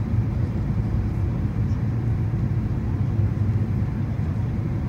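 Steady low rumble of a jet airliner in flight, heard inside the cabin: engine and airflow noise.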